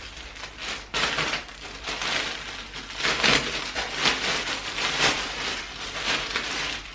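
Clear plastic clothing packaging bags crinkling and rustling in irregular crackles as garments are handled and pulled out of them.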